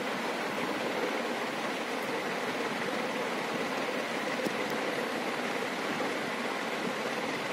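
A room fan running steadily: an even whooshing noise with a faint steady hum under it.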